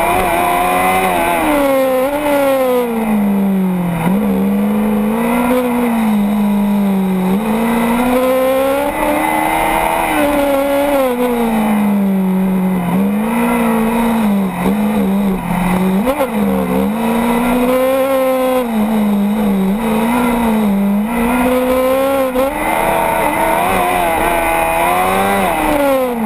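Formula Student race car engine heard from onboard, its pitch rising and falling again and again as the car accelerates and slows through a run of tight corners.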